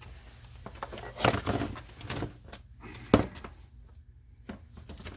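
Clunks and knocks from a fireproof safe's loose, unhinged door being handled: a short clatter a little over a second in, another knock around two seconds, a single sharp knock about three seconds in and a softer one near the end.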